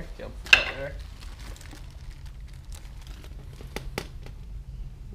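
Black plastic sheeting crinkling as a plastic plate and a caulking gun of silicone are handled on it, with two sharp clicks near the end from the caulking gun. About half a second in, a short loud voice-like sound stands out above the rest.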